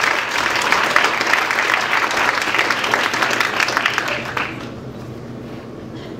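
Audience applauding, a dense patter of many hands clapping that stops fairly suddenly about four and a half seconds in.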